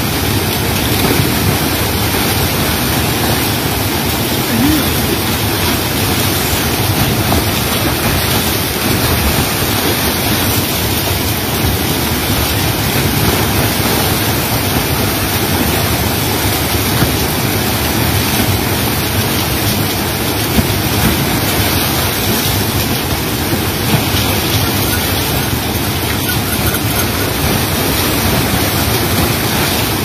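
Water pouring over a weir and waterfall into a river pool: a loud, steady rush with no break.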